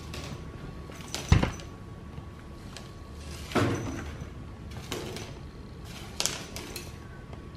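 Woven bamboo basket knocking and scraping against a tile floor: a sharp knock about a second in, a second thud a couple of seconds later, then a few lighter bumps.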